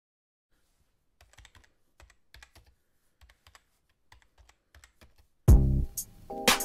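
Faint typing sound effect: a quick, uneven run of key clicks, several a second. About five and a half seconds in, loud music with a heavy beat and deep bass starts.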